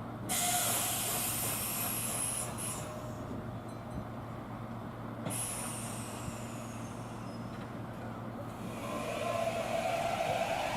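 Kintetsu electric train at a platform releasing compressed air in two loud hisses, the second with a falling whistle, over a steady low hum; near the end its traction motors start a rising whine as it pulls away.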